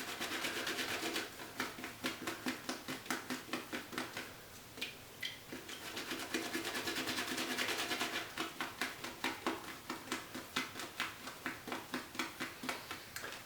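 Shaving brush with a Rooney Finest badger knot swishing soap lather in a wet palm, quick rhythmic strokes about three a second with stretches of steadier swirling: lather being built up on the hand.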